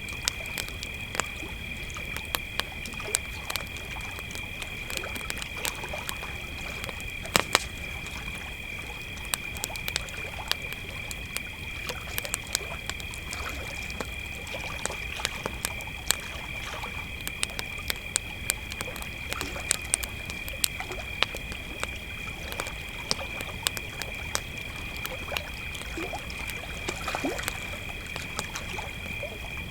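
Crickets trilling steadily over a campfire crackling, with frequent sharp, irregular pops from the burning wood.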